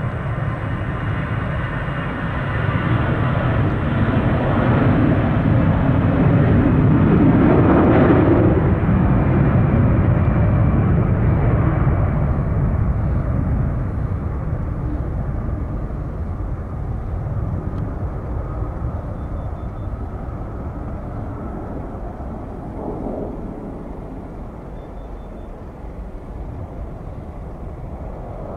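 Jet airliner passing close by: a high engine whine fades out over the first few seconds as the roar builds. The roar is loudest about eight seconds in, with a falling sweep in pitch as the aircraft goes past, then it slowly fades away.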